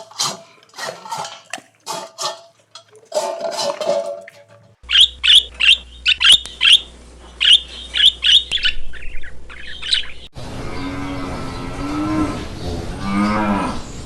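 A series of animal calls in abrupt cuts: a run of short calls, then a bird's sharp high-pitched chirps repeating several times a second, then a cow mooing in long, wavering calls from about ten seconds in.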